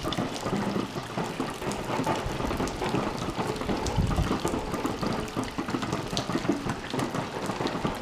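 Meltwater from thawing snow dripping and trickling, an irregular steady patter of drops.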